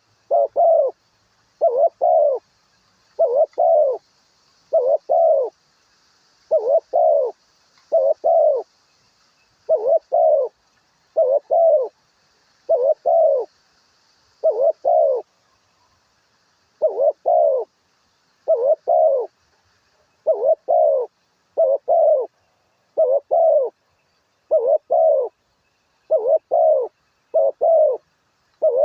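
A dove cooing in a steady series of paired low coos, about one pair every second and a half, pausing briefly about halfway through. Faint high chirping from other small birds sits underneath in the first half.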